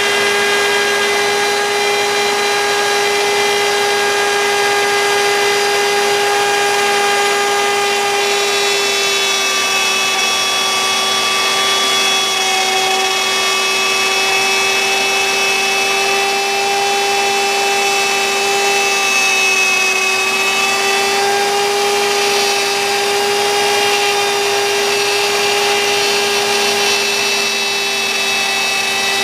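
CNC router spindle running with a steady high whine while cutting wood, the pitch dipping slightly now and then.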